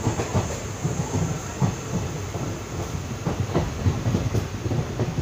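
Moving passenger train heard from inside the coach: a steady low rumble of the running carriage with irregular knocks and clatter from the wheels on the track.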